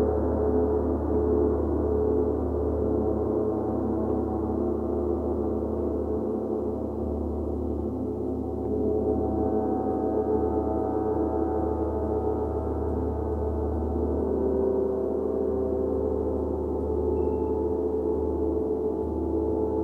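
Large gong played softly with felt-headed mallets: a dense, sustained wash of overlapping tones, from a low hum up to a bright ring, swelling gently with no sharp strikes standing out.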